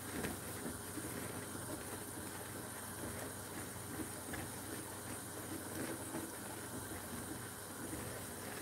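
Milk gravy heating in a nonstick skillet while a silicone whisk stirs it, as it comes up to heat to thicken: a steady soft hiss with faint irregular swishing.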